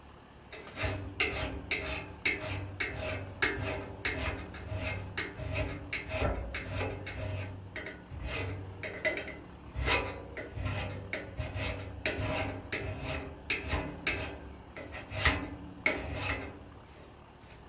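Hand-held metal file rasping along the steel edge of a double-bit axe, in repeated even strokes of about one to two a second, sharpening the bit. The strokes start about a second in and stop shortly before the end.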